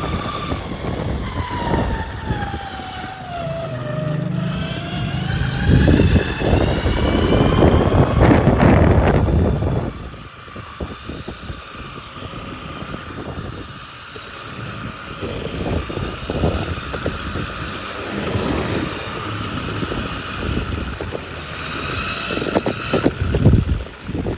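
Ecomobl ET electric skateboard riding, its motor whine falling and then rising in pitch as it slows and speeds up, over the rumble of the wheels. Wind gusts buffet the microphone, loudest about six to ten seconds in and again near the end.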